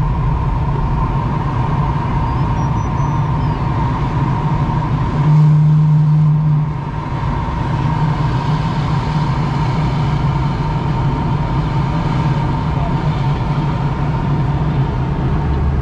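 Steady rushing airflow inside a sailplane's cockpit in gliding flight, with a thin steady tone throughout. A louder low hum rises about five seconds in and drops away after about a second and a half.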